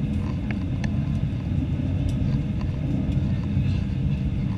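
Steady cabin rumble of an Airbus A318-111 on final approach, its CFM56 engine and the airflow heard from inside the cabin at the window. There is a faint steady hum above the rumble and a few small ticks.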